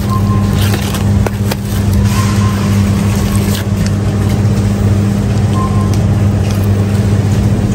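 Steady low hum of a supermarket frozen-food display case, with the plastic wrap of a frozen chicken pack rustling and clicking as it is picked up and turned over. Three short faint beeps sound in the background.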